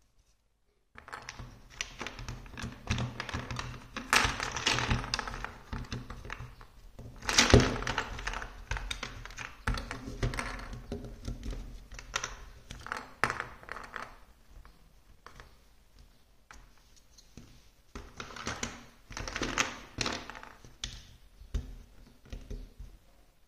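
Large plastic building blocks and a hollow plastic dinosaur piece being handled, knocked against the pile and pressed together: irregular clattering and clicking starting about a second in, with the loudest knock about seven and a half seconds in.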